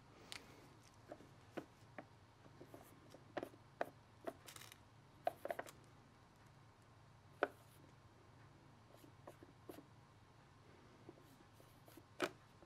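Sparse light taps, clicks and short rubbing sounds of hands working on cardboard firework cakes, over a faint steady low hum.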